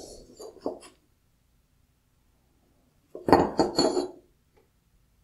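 A finned metal LED heat sink handled on a wooden workbench, clinking and knocking: a short run of light knocks in the first second, then a louder cluster of clatter about three seconds in as it is picked up.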